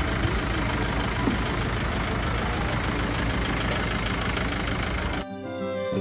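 A van's engine idling with steady, loud outdoor noise. It cuts off abruptly about five seconds in, and music takes over.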